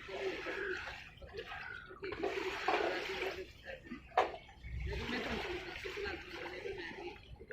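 Water sloshing and gurgling close to the microphone, with an uneven, surging rhythm. A single sharp click comes about four seconds in.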